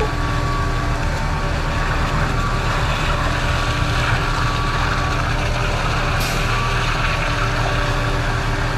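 Heavy diesel truck engines running steadily at a concrete pump during a pour, with a brief sharp tick about six seconds in.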